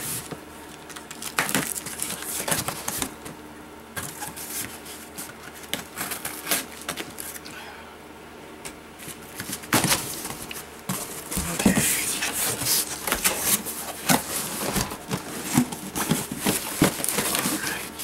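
A cardboard shipping box being opened and unpacked by hand: cardboard flaps scraping and packing material rustling and crinkling, with many short clicks and taps. The handling gets busier and louder about ten seconds in.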